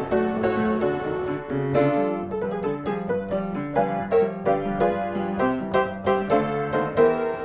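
Background piano music with quick, evenly spaced notes and chords in a bouncy rhythm.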